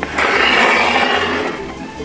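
A loud hiss that starts suddenly and fades out after about a second and a half, over background music with a steady beat.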